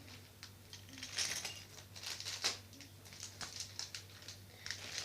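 Jewellery being handled: scattered light clicks and taps of small hard objects, over a faint steady hum.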